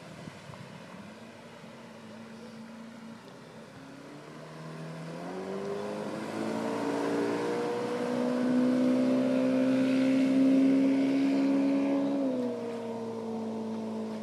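Yamaha 115 hp oil-injected two-stroke outboard motor running at speed as the boat passes. Its drone grows louder and higher from about five seconds in, is loudest for a few seconds, then drops in pitch as the boat goes by and away.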